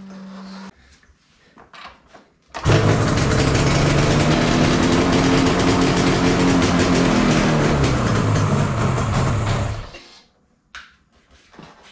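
Yamaha RZ350's freshly rebuilt two-stroke parallel-twin engine running during carburettor tuning, its revs slowly rising and then easing back down over several seconds. It starts and stops abruptly.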